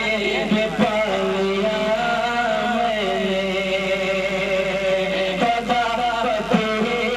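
A man singing a manqabat, a Sufi devotional song, through a microphone, in long held notes that bend from one pitch to the next.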